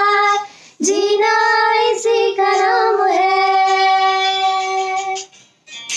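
Female voices singing a held, wordless note from a Hindi film song, without accompaniment; the note breaks off about half a second in and a new long note is held until about five seconds in.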